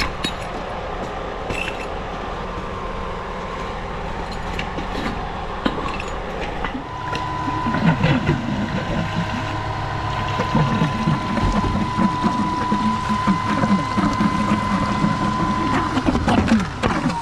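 Concrete pump truck running with a steady engine hum. About seven seconds in, a steady high whine joins it, together with irregular clattering.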